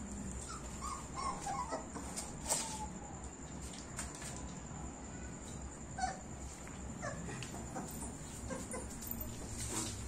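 Young German Shepherd puppies, about four weeks old, whimpering with short high squeaks scattered through, along with a few sharp clicks.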